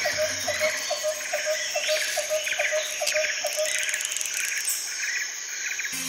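Forest ambience of birds and insects: a short call repeated about five times a second, stopping a little after halfway, with bursts of chirping and trilling and a few whistled sweeps over it.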